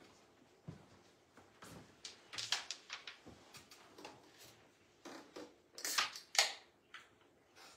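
Carrom striker and wooden carrom men clicking on the board: a series of separate sharp wooden clicks, the loudest pair about six seconds in.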